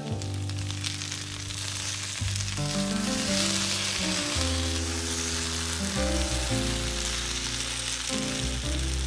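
Sliced potatoes sizzling steadily as they fry in oil in a nonstick pan, being turned over with a spatula.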